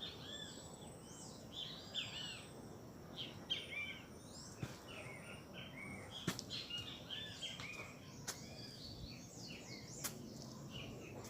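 Several small birds singing and calling in a morning chorus: many short, rising-and-falling chirps overlapping, faint overall, with a few sharp clicks.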